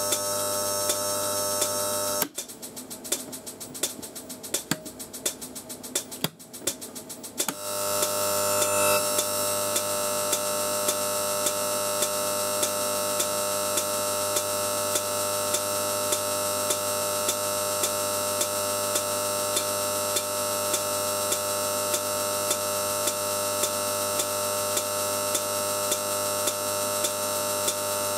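High-voltage discharge at a thin wire electrode in electrolyte, buzzing steadily with a many-toned hum and a sharp tick about every three-quarters of a second. From about two to seven seconds in, the buzz drops out and breaks into irregular crackling, then comes back.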